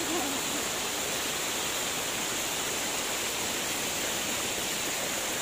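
Steady rush of water streaming over a rock slab and spilling down a waterfall.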